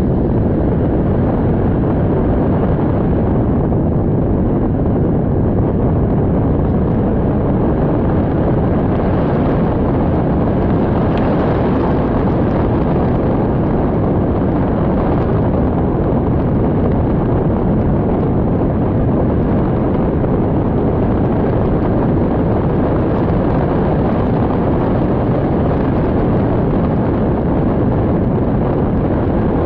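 Storm wind blowing hard across the microphone: a loud, steady low rumble of noise with no pitch, holding the same strength throughout.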